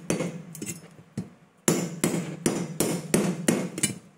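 Large knife hacking at a whole coconut: repeated chopping strikes into the husk and shell, a few scattered at first, then faster and harder at about three a second from a little under two seconds in. The coconut is not giving way to the blows.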